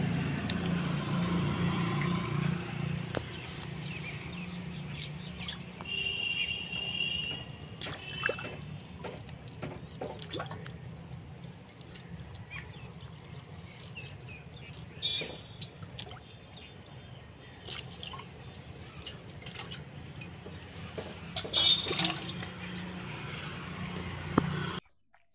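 A nylon cast net being handled as fish are picked out of it by hand: the mesh rustles with scattered light clicks and taps, over a steady low hum. A few short high chirps come through, and everything cuts off suddenly near the end.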